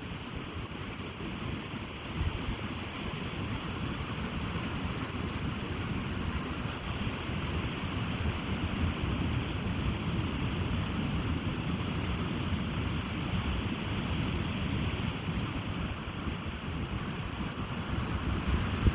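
Ocean surf washing on a beach in a steady rush, with wind buffeting the microphone in low, irregular rumbles.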